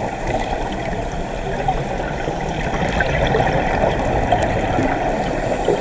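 Water splashing and trickling, a dense, crackly rush of noise.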